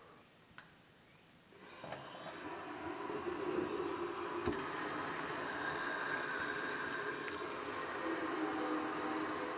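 A kitchen tap comes on about two seconds in, and water runs steadily into a metal sink, rinsing soap suds down the drain.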